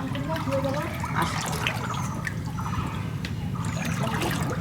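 Knee-deep floodwater sloshing and trickling, with scattered small splashes and drips.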